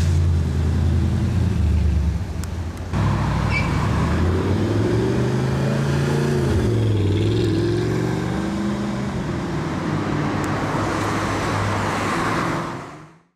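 Audi R8 V8 with a custom exhaust driving by, its engine note climbing and then dropping back around six to seven seconds in, over city traffic noise. The sound breaks off sharply about three seconds in and fades out at the very end.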